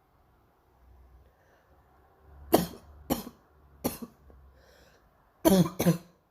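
A girl's harsh, barking morning cough: after a quiet couple of seconds, three sharp coughs about half a second apart, then a short breath and two more coughs in quick succession near the end.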